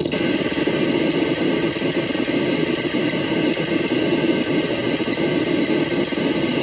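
Harsh electronic noise from an experimental noise machine: a dense, loud wall of hiss and grinding texture with steady stacked tones, which starts up abruptly after a short break and holds steady.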